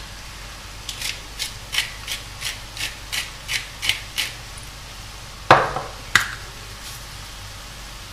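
Hand pepper mill being twisted, grinding in about a dozen short rasping strokes, roughly three a second. Then two sharper clacks about a second apart.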